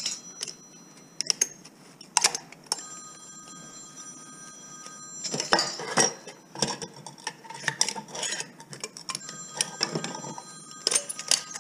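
Metal clinks, taps and scrapes of a screwdriver working at a microwave magnetron's steel casing, with a busier run of knocks about halfway through and again near the end, and a thin high ringing holding for a couple of seconds at a time.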